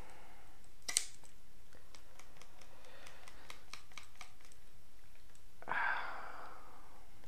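Hand leather punch snapping through rawhide with one sharp click about a second in, followed by a run of light, quick ticks and a short rustle near the end.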